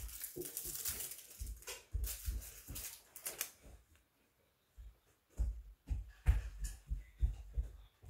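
Hands handling small plastic gadgets and their packaging: rustling and crinkling, then after a short pause a run of light knocks and taps against the wooden tabletop.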